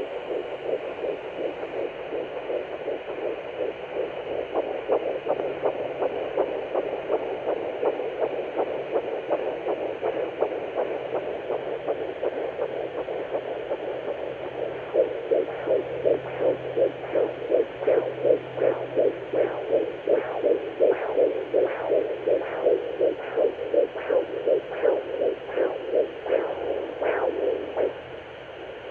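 Fetal heartbeat at 10 weeks 2 days, picked up by a Sonoline B handheld fetal Doppler and heard through its speaker as fast, even whooshing pulses over a steady hiss. The beats grow louder and clearer about halfway through and fade just before the end.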